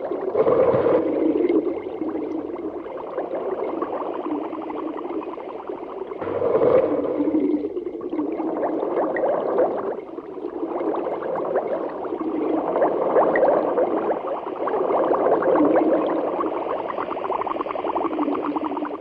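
A magic sound effect: a long wavering drone that swells and eases several times, loudest about half a second and again about seven seconds in.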